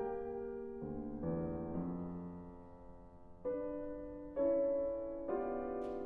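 Grand piano playing alone, a series of chords struck one after another, each ringing and fading before the next.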